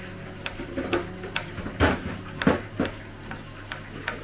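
Kitchen knife chopping garlic on a wooden cutting board: a string of irregular knocks of the blade against the board, the loudest around the middle.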